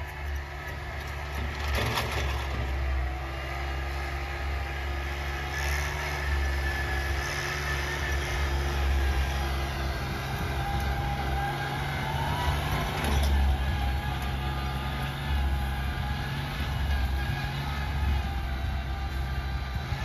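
Compact tractor engine running steadily while towing a sled through snow, with a low, continuous drone.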